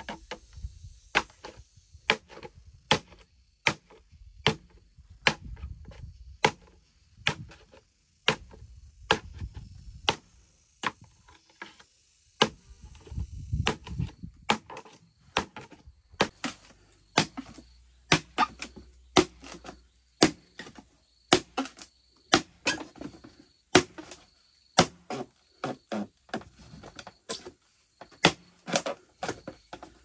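Machete chopping into a green bamboo pole: a steady run of sharp knocks, about one to two a second.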